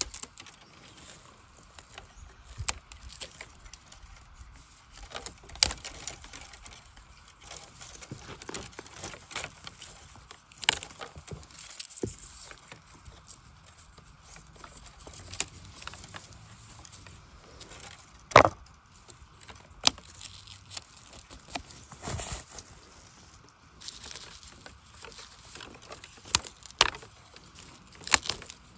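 Scattered sharp snaps and cracks of bamboo as young shoots are broken off by hand among dry stems, with lighter crackling of dry stalks and leaf litter between them; the loudest snap comes a little past halfway.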